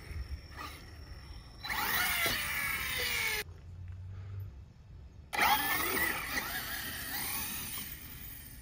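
ARRMA Notorious 6S 1/8-scale RC truck's brushless motor and drivetrain whining as it drives on grass, in two loud spells of a couple of seconds each with a quieter gap between. The whine glides in pitch, mostly falling, over a hiss of tyres and gearing.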